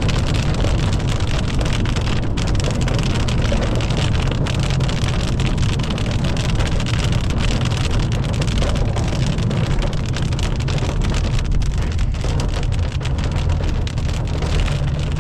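Rain hitting a car while it drives, over a steady low rumble of road and engine noise.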